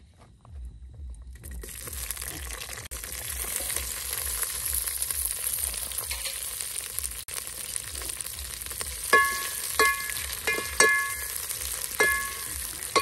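Sliced red onions sizzling as they are tipped into hot oil in a steel pot; the frying hiss builds about a second in and stays strong. From about nine seconds, a spoon stirring the onions knocks against the metal pot several times, each clink ringing briefly.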